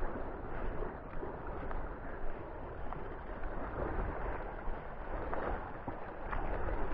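Steady wind noise buffeting the microphone, with sea water washing around the rocks below.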